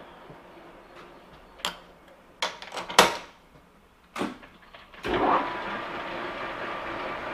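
Sharp metal knocks and clunks from working a manual lathe's levers and tooling, the loudest about three seconds in. About five seconds in the lathe spindle starts and runs steadily with a whine.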